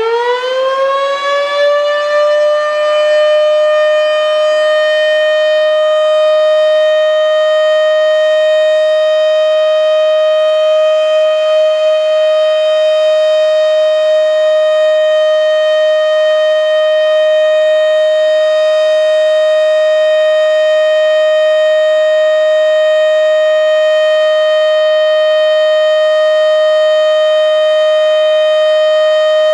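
Federal Signal Model 7B outdoor warning siren sounding on test: it finishes winding up, its pitch rising over the first couple of seconds, then holds one loud, steady tone.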